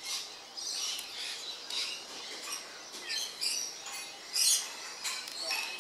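Birds chirping: a string of short, high calls.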